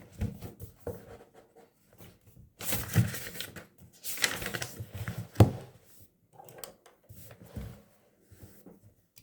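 Light everyday handling sounds: scattered rustles, taps and clicks, busiest about three and five seconds in, with one sharp click a little after five seconds.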